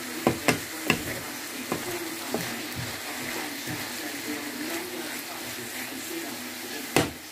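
Chicken and vegetables sizzling in a frying pan as they are stir-fried with a wooden spatula. The spatula knocks against the pan several times in the first two seconds or so, and once more, loudest, near the end.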